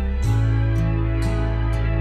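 Instrumental background music with held notes; the chord changes about a quarter of a second in.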